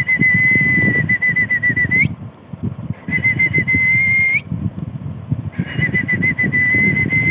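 A high whistle-like tone held steady in three long notes of about one and a half to two and a half seconds, each ending in a short upward flick, over irregular low rustling and thumps.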